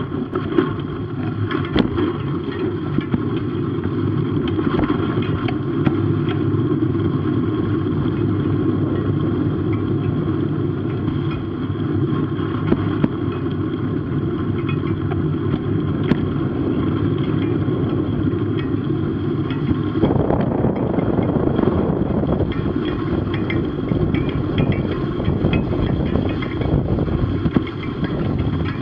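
Motorcycle riding along a snow-covered road: a steady, dense rush of engine, wind on the camera and tyre noise on snow, growing fuller about two-thirds of the way through.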